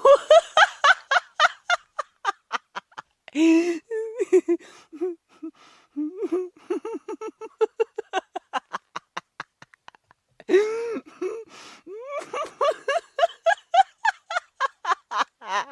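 Hearty human laughter in long fits of rapid "ha" pulses, about four or five a second, broken by sharp breathy in-breaths about three and a half and ten and a half seconds in. The pitch climbs high in the fits near the start and near the end, with a lower, fainter run in the middle.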